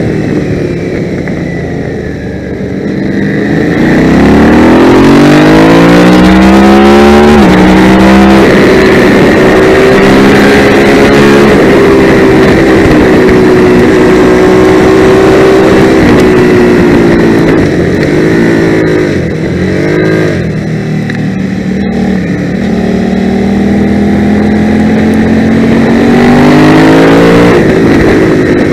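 650cc twin-cylinder race bike engine, heard close up from on board, revving hard through the gears: the revs climb steeply about four seconds in with an upshift, hold high for several seconds, fall through the downshifts for a bend, then climb again near the end. A steady rush of wind noise runs under it.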